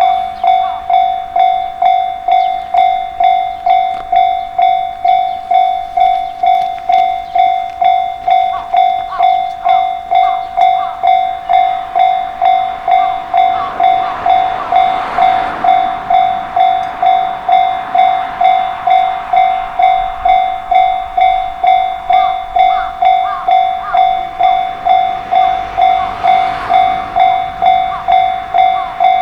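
Japanese railway level-crossing alarm ringing its steady electronic "kan-kan", a little under two strikes a second. A train runs past the crossing, its rushing noise and short wheel squeals swelling about halfway through and again near the end.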